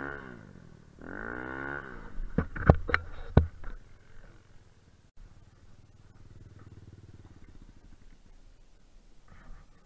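Kuba Black Cat dirt bike's air-cooled engine revving up and down through deep snow, broken by a few sharp knocks about two to three and a half seconds in. It then settles to a low, quieter steady idle as the bike lies tipped over in the snow.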